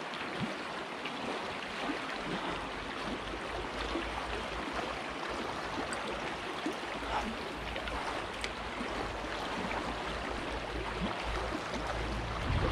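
Shallow river running over a stony bed: a steady rush of flowing water, with a low rumble underneath from about two seconds in.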